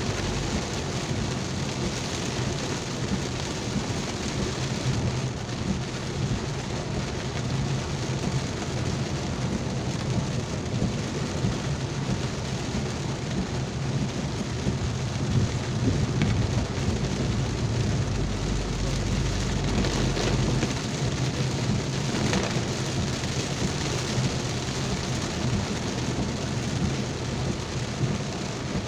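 Heavy rain falling steadily, with a continuous low rumble underneath.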